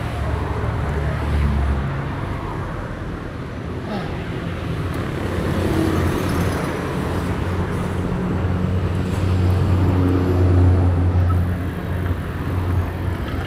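City street traffic: vehicle engines running close by, with a low, steady engine drone that swells about two-thirds of the way through.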